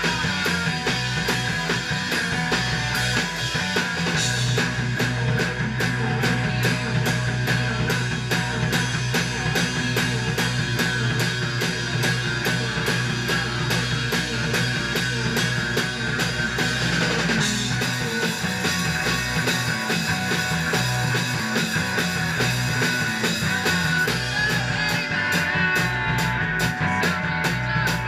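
Rock band playing live and loud: distorted electric guitar over a driving drum kit, steady throughout.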